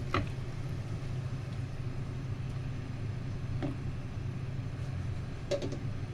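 Steady low hum around a pan of boiling water on an electric hob, with three light knocks of a spatula against the pan and plate as seafood is tipped into the water.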